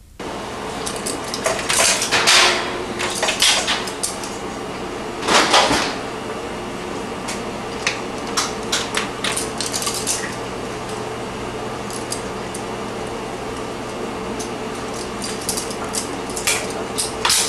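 Scattered light clicks and clatter of small hard objects, with a couple of denser noisy patches about two and five and a half seconds in, over a steady faint hum.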